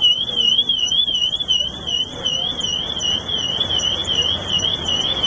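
Electronic alarm sounding continuously: a high, piercing tone that warbles up and down about four times a second.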